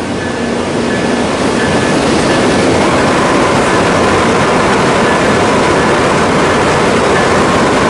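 Siemens SC-44 Charger diesel locomotive's Cummins QSK95 engine and cooling fans running loud at close range, building gradually, with a steady whine joining about three seconds in.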